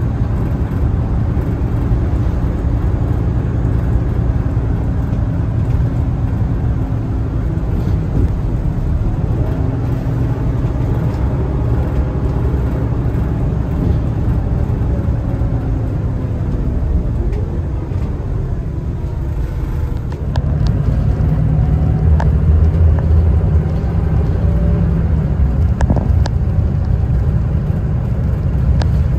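City bus engine and road noise heard from inside the passenger cabin while driving: a steady low rumble with a faint whine over it. It eases off about two-thirds of the way through, then comes back louder.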